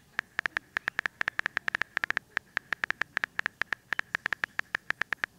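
Smartphone keyboard tap sounds: a rapid, slightly uneven run of short clicks, about eight a second, each with a slight tone, as a text message is typed letter by letter.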